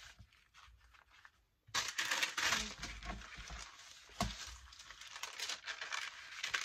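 Paper rustling and crinkling as a stack of torn, folded paper pages and a sheet of brown paper are handled and pressed flat. It is faint at first and grows loud about two seconds in, with a single soft knock about halfway through.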